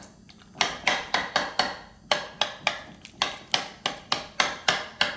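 A spoon knocking rapidly against a bowl while stirring thick ricotta cheese, about five sharp clacks a second in short runs.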